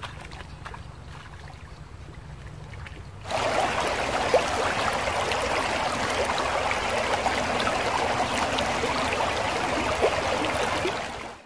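Shallow river water flowing, a steady rush that starts abruptly about three seconds in and fades out near the end. Before it there is only a faint, quieter riverside background.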